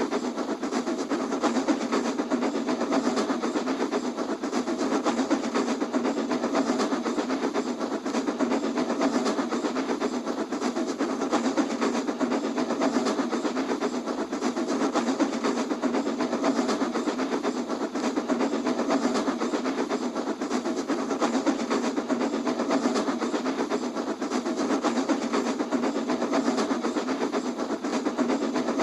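A steady, fast mechanical clatter that runs on unchanged, with almost no deep bass.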